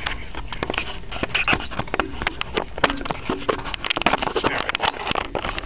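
A Scottish terrier eating a treat off the carpet: an irregular run of crisp crunching and smacking clicks, with sniffing.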